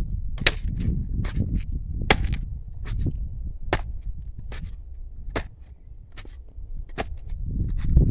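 Clamshell post-hole digger jabbed repeatedly into hard, crusted clay soil, giving sharp strikes about once a second over a low rumble.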